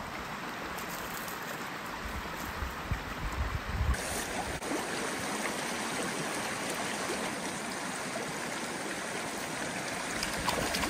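Small, shallow spring creek running over a stony bed: a steady rush and trickle of flowing water.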